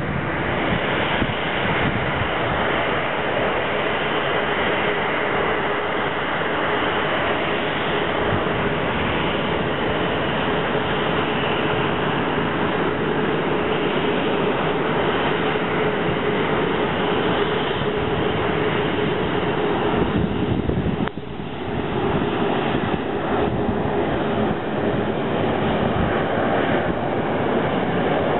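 Boeing 737-800's CFM56 jet engines running at taxi power: a steady rushing noise with a faint steady hum through it, briefly quieter about three-quarters of the way through.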